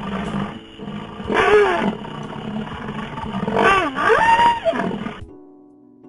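A large animal calling twice, each call loud and pitched, rising and then falling, over a steady low rumble. It stops abruptly a little after five seconds in.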